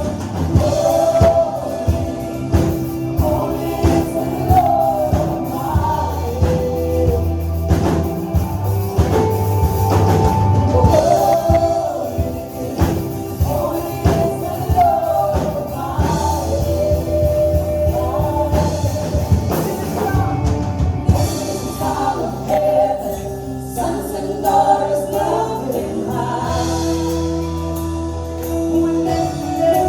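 Live contemporary worship music: a band with drums and bass playing under a group of voices singing the melody together.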